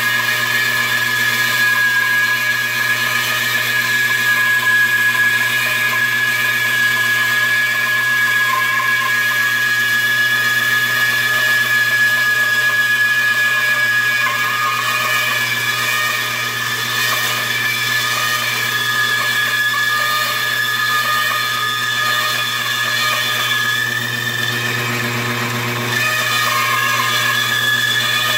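Bandsaw running with a steady whine while resawing a wood board into 3/8-inch-thick strips. The sound drops slightly for a stretch in the middle and picks up again a couple of seconds before the end.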